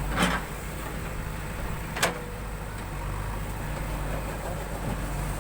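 Diesel engine of a JCB 3DX backhoe loader running steadily, with a short knock near the start and a sharp metallic clank about two seconds in.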